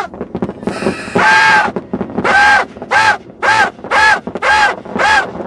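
New Year's party horns blown by the revellers: one long buzzy blast about a second in, then a run of six short toots about two a second, each a steady reedy tone.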